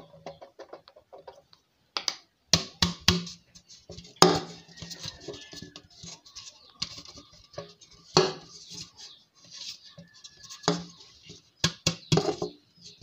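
Flour being sifted through a metal mesh sieve worked by hand: irregular knocks and rattles of the sieve with a brushing hiss of flour passing through the mesh.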